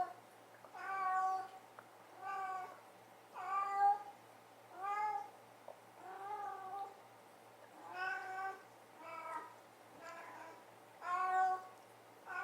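Kitten meowing over and over, about nine short calls, roughly one a second.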